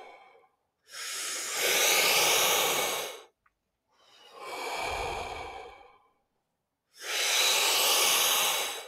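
Deep, full breaths through the mouth, the Qigong 'warrior breathing' of filling belly then chest: three long rushes of air with short silences between, the first and last loudest.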